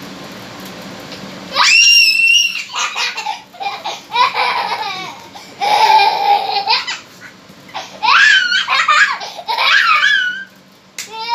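A small child laughing and squealing several times over, with short pauses between, beginning with a very high shriek about two seconds in.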